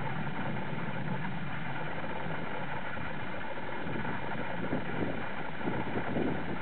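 Wind blowing across the microphone: a steady rushing noise with soft, uneven low buffeting.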